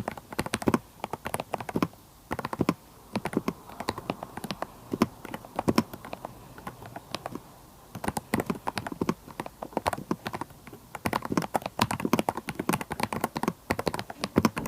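Typing on a VGN V87 mechanical keyboard fitted with unlubricated KTT Kang White v3 linear switches: rapid runs of keystrokes with short pauses about two seconds in and again around six to eight seconds in.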